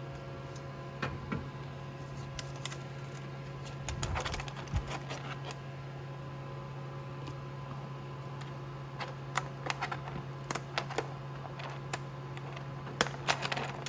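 Scattered light plastic clicks and crackles as a 3D print and its thin printed wall are flexed and peeled off the FlashForge Adventurer 4's removable build plate, with clusters around four seconds in and again later. A steady low hum runs underneath.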